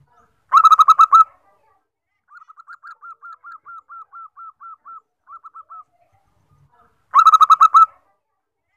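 Zebra dove (perkutut) cooing: a loud, quick run of about seven rolling notes, repeated about six and a half seconds later. Between the two phrases there is a much fainter, longer series of evenly spaced quick notes.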